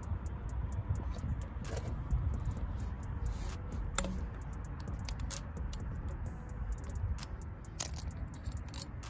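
Hand ratchet with a 10 mm socket clicking and metal tools clinking while the bolts holding the MAP sensor to the intercooler pipe are backed out. The clicks come irregularly, a few louder ones standing out, over a steady low rumble.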